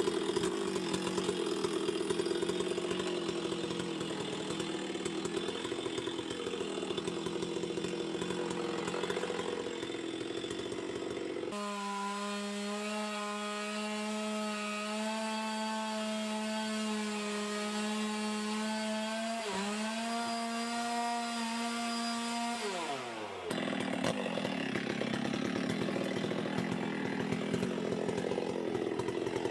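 Chainsaw cutting into wood, its engine note rough and labouring under load. About a third of the way in the sound switches abruptly to a clean, steady high-revving engine tone, which falls away near the end before the rough cutting sound returns.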